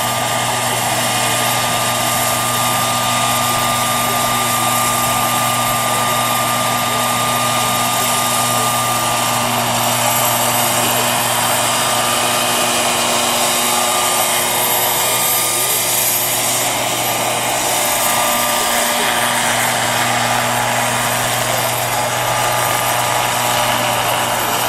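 Turbine engine and rotor of a radio-controlled scale Agusta A109 helicopter running steadily in a hover. A continuous high turbine whine sits over a steady low rotor hum.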